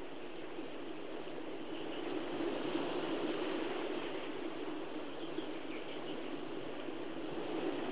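A steady rushing noise, with faint high chirps scattered through the middle seconds.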